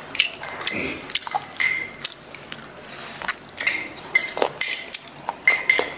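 Metal spoons clinking and scraping against small ceramic bowls and eggshells as people eat: a scatter of light, irregular clinks, several with a short high ring.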